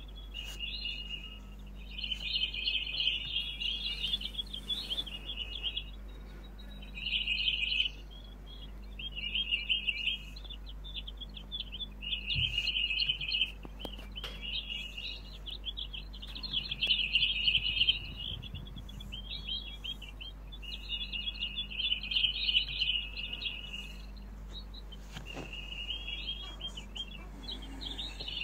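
Young Eurasian jay calling in a long string of short chirping bouts, each a second or two long with brief pauses between.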